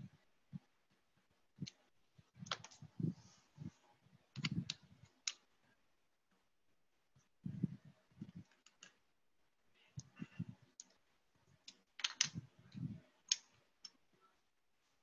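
Plastic Lego bricks clicking and knocking as they are pulled apart and pressed back together, in irregular clusters with a pause of about two seconds near the middle.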